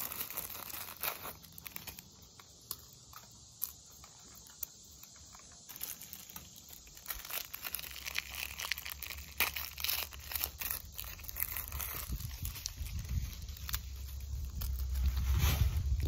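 Cellophane cracker packet crinkling and tearing as it is worked open by hand, with many sharp crackles. A low rumble builds toward the end.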